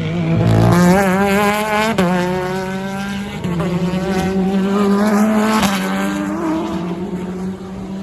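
Race car engines at full throttle passing on the circuit. The pitch climbs, drops sharply at an upshift about two seconds in, climbs again, and shifts once more near six seconds. The sound then fades as the cars move away.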